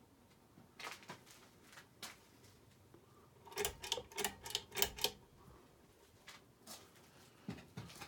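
Clicking and chain rattle from a Hunter Dimensions ceiling fan's pull-chain switch being worked. A few single clicks come first, then a quick run of about half a dozen sharp clicks in the middle, the loudest part, and a few scattered clicks near the end.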